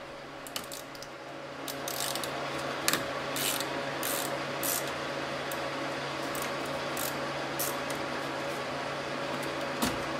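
Irregular clicks and metal clinks of a 10 mm ratcheting wrench loosening a car battery's terminal clamp nut, and of the clamp being worked off the post. A steady low hum comes in about two seconds in.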